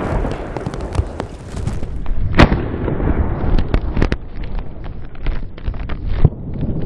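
Fireworks: a 30 mm shell's crackling stars pop densely at first. Then come sharp bangs, the loudest about two and a half seconds in and others near four and six seconds, among many smaller scattered pops.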